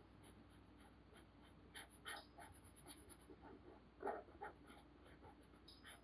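Felt-tip marker rubbing on paper as an area is coloured in: faint, quick, irregular strokes, the loudest about four seconds in.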